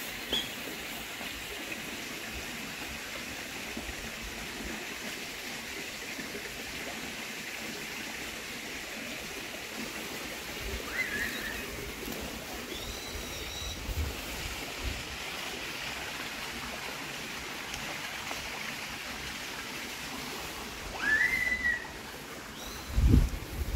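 Steady outdoor hiss with a few short bird chirps scattered through it, and low rumbling bumps on the microphone near the end.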